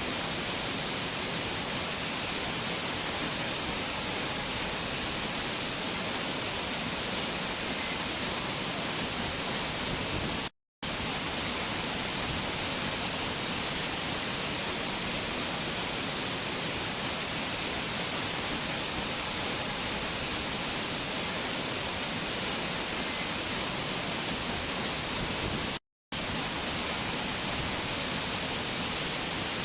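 Waterfall: a steady, even rush of falling water, with a bright hiss in the highs. Twice, about ten seconds in and again near the end, the sound drops out to silence for a split second.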